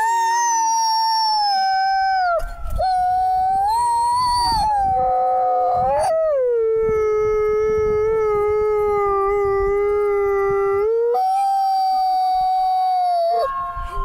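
Wolf howling close up: a series of long, smooth, held howls broken by short pauses about 2.5, 6, 11 and 13.5 seconds in. The longest is a lower held note from about 6.5 to 11 seconds, with the other howls pitched higher.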